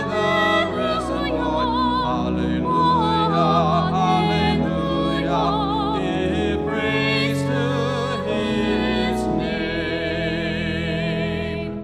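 Sung music: voices singing with vibrato over sustained accompanying chords, stopping right at the end.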